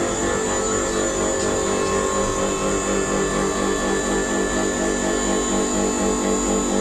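Two-post car lift's electric hydraulic pump motor running steadily as it raises a car.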